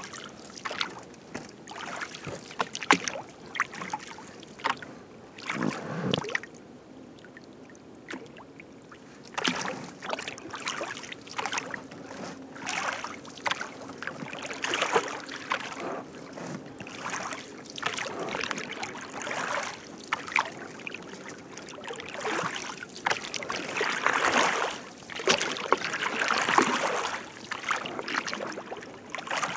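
Oars splashing and dipping in the water as an inflatable rubber rowboat is rowed, in irregular strokes. There is a short lull about seven seconds in, and the strokes are loudest near the end.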